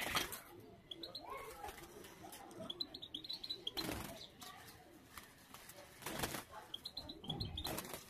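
Small caged finches fluttering their wings against the wire cage in several short bursts, with two runs of quick high chirps, one about a third of the way in and one near the end.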